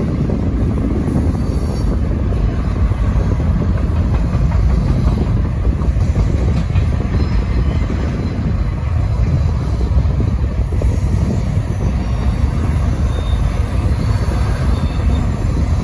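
Double-stack container cars of a long freight train rolling past, a steady rumble of steel wheels on the rails.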